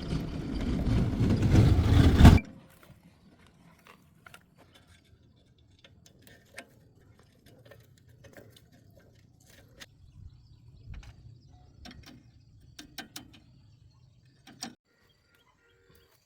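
A loud machine noise that grows louder for about two seconds and then cuts off suddenly, followed by scattered faint clicks and taps of tools on metal.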